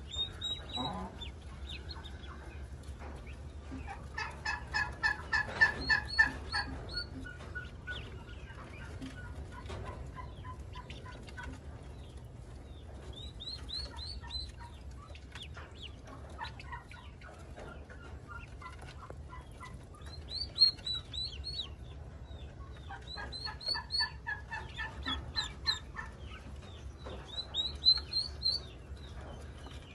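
Ducklings peeping in short, high, rising calls, with a hen clucking in two spells of quick repeated calls, one near the start and one past the middle.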